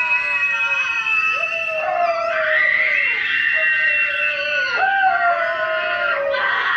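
A person screaming: long, high, held wails that slide in pitch, broken by short pauses for breath.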